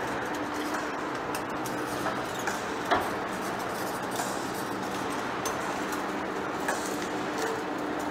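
Large industrial lathe running, turning a heavy rusty steel workpiece: a steady machine hum and noise with scattered small ticks and one sharper click about three seconds in.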